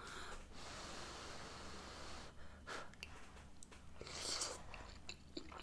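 A person blowing on hot spaghetti to cool it: one long breath of about two seconds, then a shorter puff about four seconds in, with a few faint clicks.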